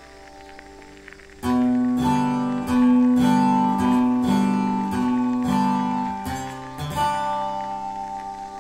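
Acoustic guitar music: a few soft notes ring on, then about a second and a half in a run of loud plucked chords starts, about one or two a second, and the last chord rings out near the end.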